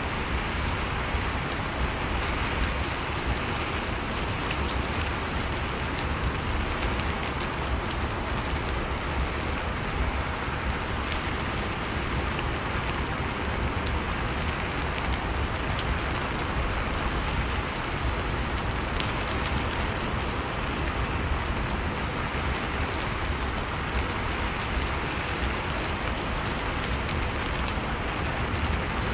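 Steady rain falling and pattering on surfaces, an even wash of noise with a low rumble underneath and scattered faint drop ticks.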